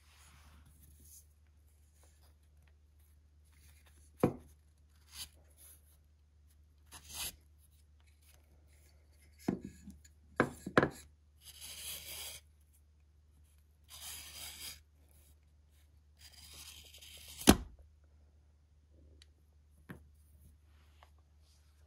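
Wooden strap cutter drawn along a leather strip, its blade slicing it lengthwise in three scraping pulls. Clicks and knocks from setting and handling the tool come before the pulls, and a sharp knock ends the last one.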